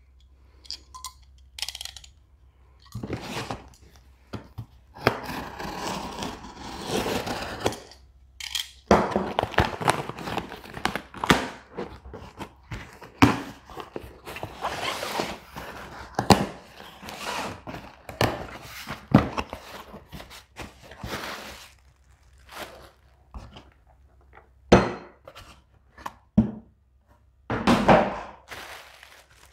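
A shipping package being handled: irregular thunks and knocks with stretches of rustling and scraping as it is turned over and set down.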